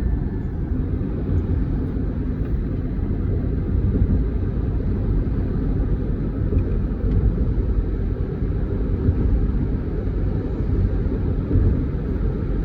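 Steady low rumble of a moving vehicle: road and wind noise while driving, even throughout with no distinct events.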